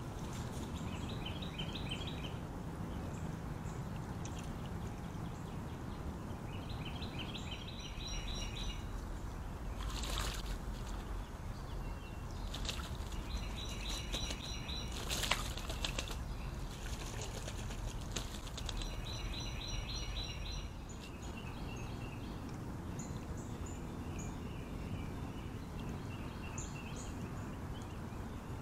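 Steady rush of a shallow creek's flowing water, with a small songbird repeating a short, quick phrase of high notes every few seconds. Two short loud noises stand out, about ten and fifteen seconds in.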